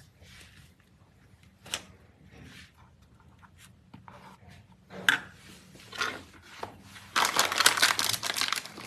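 A table knife scraping and spreading soft paneer-garlic paste on slices of bread, with faint scrapes and light clicks. About seven seconds in comes the loudest sound: a plastic bread bag crinkling as it is handled.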